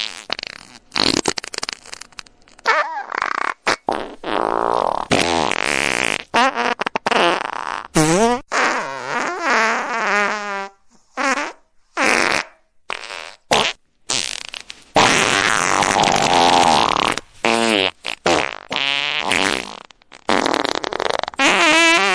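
A long run of fart sounds, one after another with short gaps between them. Some are short and sputtering, some are long with a wavering pitch that dips and rises, and one noisy blast runs about two seconds.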